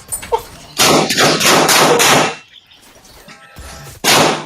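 Loud gunshots: a quick burst of about six shots, then a single shot near the end.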